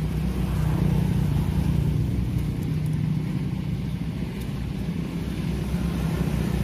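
An engine running steadily at a low, even pitch.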